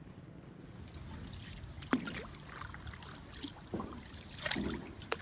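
Paddles dipping and splashing in floodwater as a small boat is paddled along, with two sharp knocks, one about two seconds in and one near the end.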